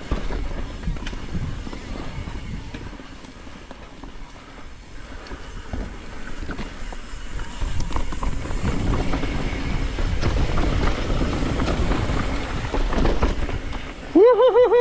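Mountain bike rolling down a rocky, rooty trail: tyres and frame rattling and knocking over rocks and roots, louder in the second half. Near the end a short warbling tone.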